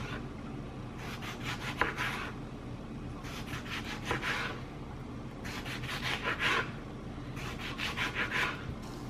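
Serrated knife sawing through a ripe tomato down onto a plastic cutting board, in four slicing bursts of quick back-and-forth strokes, each about a second long.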